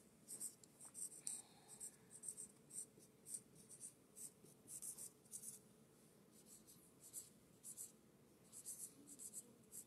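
Dry-erase marker writing on a lined whiteboard: a run of faint, short, high-pitched squeaky strokes, one letter-stroke after another, with brief pauses between words.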